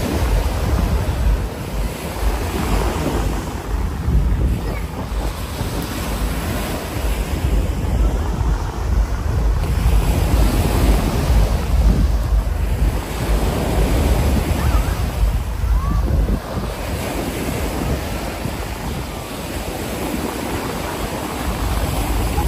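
Ocean surf breaking and washing up the beach, swelling and fading every few seconds, with wind rumbling on the microphone.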